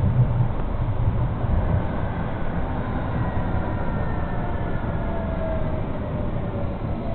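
Electric tram heard from inside the vehicle: a steady low running rumble from the wheels on the rails. Faint motor whine slowly falls in pitch through the second half, as the tram slows.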